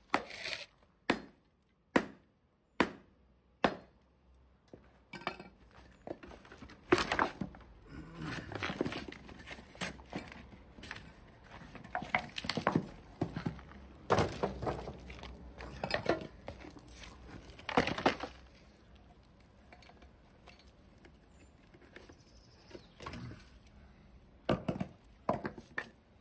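Hammer blows breaking the concrete mold away from a cast lead ballast keel: about five sharp, evenly spaced knocks at first, then irregular knocking with broken concrete crumbling and rattling, and a couple more blows near the end.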